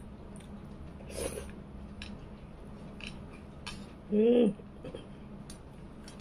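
Fingers squishing and gathering curry-soaked rice on a plate, with soft scraping and light clicks of fingers and rings against the plate. About four seconds in, a short voiced sound from the eater, like a brief 'mm'.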